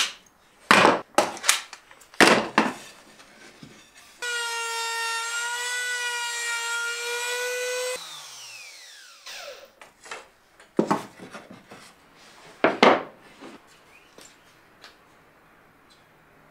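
Several short, loud scraping strokes on wood, then a trim router running with a steady high-pitched whine for about four seconds, winding down in a falling whine once switched off, followed by a few more scraping strokes.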